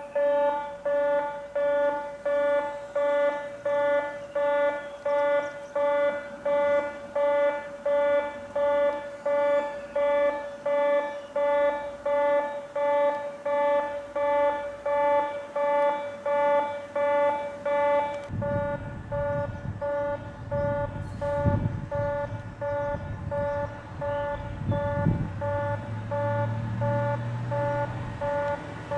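Railway station train-approach warning tone: a buzzing electronic tone pulsing steadily, about four times every three seconds, signalling that a train is approaching. About two-thirds of the way through, a low rumble joins beneath it.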